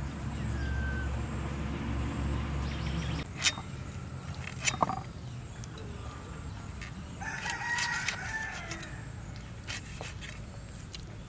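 A rooster crows once, about seven seconds in, a single call of about a second and a half. A low steady hum runs through the first three seconds, and a few sharp clicks sound around the middle as the fish is cut on the blade.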